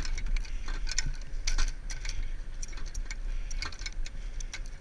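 Low rumble of a military truck with irregular metallic clinks and rattles of loose metal gear around the gun mount.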